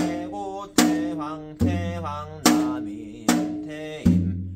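Janggu (Korean hourglass drum) played in a slow gutgeori rhythm, one stroke about every 0.8 s. A few strokes, about one and a half seconds in and again near the end, carry a deep boom from the left head. Over the drumming a man sings the taepyeongso melody in mnemonic syllables (gueum), with wavering, held notes.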